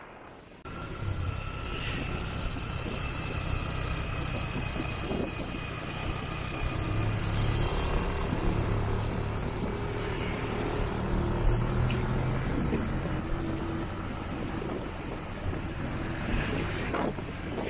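The 500cc parallel-twin engine of a 1974 Triumph Trophy motorcycle running under way, over a steady rush of wind and road noise. The sound comes in abruptly under a second in.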